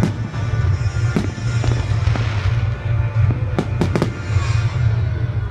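Aerial fireworks shells bursting overhead, a string of sharp bangs with three in quick succession about three and a half seconds in.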